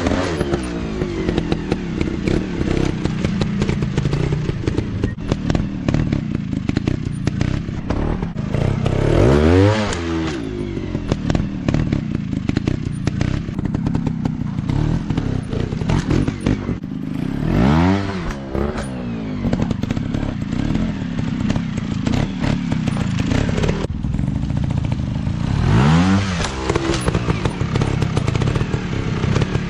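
Trail dirt bike engines running, revving up and back down four times about eight seconds apart, with frequent sharp knocks and clatter in between.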